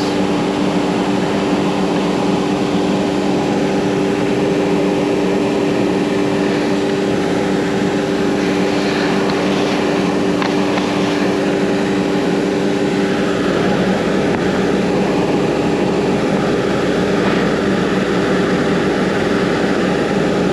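ShopBot CNC router's spindle running as the bit cuts a profile through a wooden sheet, with the dust collection drawing through the dust shoe. It is a loud, steady hum of several tones, with a rougher cutting noise through the middle.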